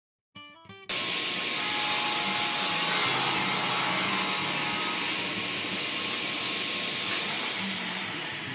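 Table saw starting up under a second in and running. From about one and a half to five seconds in, its blade rips through a small piece of plywood with a louder, hissier cutting sound, then runs on free without load.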